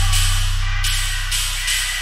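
Music from a DJ mix: high, hissy percussion hits over a heavy bass line that fades away toward the end.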